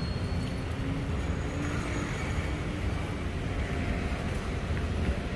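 Steady road traffic noise.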